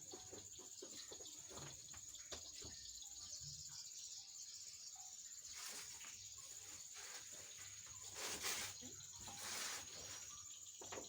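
Faint, steady high-pitched insect trill, with scattered light clicks and a few short rustling noises near the middle and towards the end.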